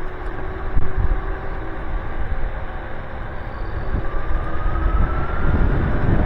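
Nanrobot Lightning 2.0 electric scooter (dual 800-watt motors, solid tires) riding along: a steady low rumble from the solid tires and wind on the microphone, with a faint motor whine that rises in pitch over the last couple of seconds as it speeds up.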